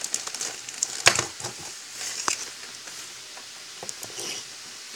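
Thin clear plastic toy bag crinkling and crackling as it is handled and the toy is pulled out, with a few sharp clicks, the loudest about a second in.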